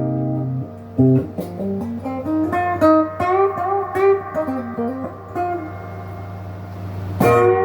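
Epiphone Les Paul Junior electric guitar on its single bridge pickup, played through a Crate amp's own overdrive with the guitar's volume rolled back so it sounds cleaned up, and the tone knob rolled off. A ringing chord is cut short, then a chord is struck about a second in, followed by a single-note lick with string bends, and a chord is struck near the end.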